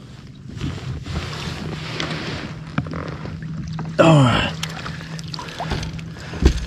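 Water splashing as a fish thrashes in a landing net beside a kayak. About four seconds in, a short, loud exclamation falls in pitch as the net is lifted.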